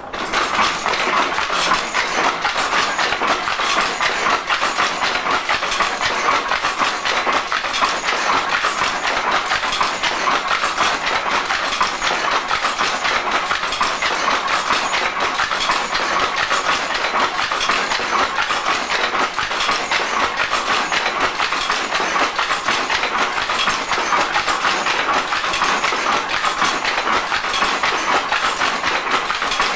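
Hattersley treadle loom weaving single-width Harris tweed at full speed: a loud, fast, steady mechanical clatter as the shuttles are thrown and the cam-lifted heddle boards and beater work.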